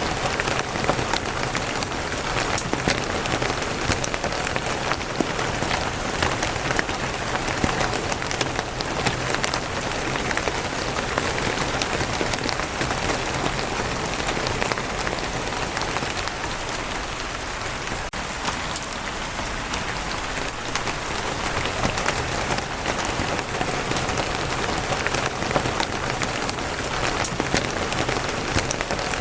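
Steady rain falling on a wooden roof, a dense patter of many small drops.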